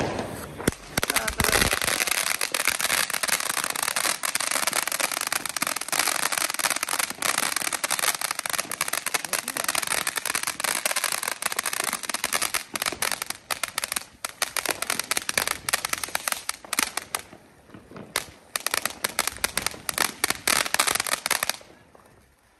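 A small children's ground fountain firework, rated to about 4 metres, hissing and crackling densely with rapid sharp pops. The crackling thins out briefly a few seconds before it stops, about a second before the end.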